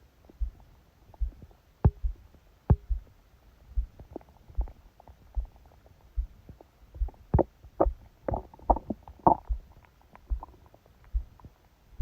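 A sleeping person's stomach gurgling and clicking, picked up by a phone resting on the belly. Under it runs the heartbeat, loud and fast, as low thumps a little more than once a second. A run of gurgles bunches together about two-thirds of the way through.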